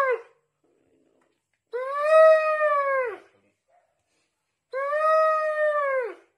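A sick dog, stricken by toad poisoning, giving long drawn-out howling cries: the end of one at the start, then two more, each about a second and a half long, holding a steady pitch and dropping off at the end.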